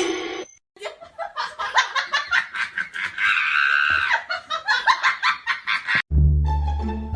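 A person laughing hard in rapid bursts, with a high drawn-out squeal in the middle. Music with low plucked strings cuts in about six seconds in.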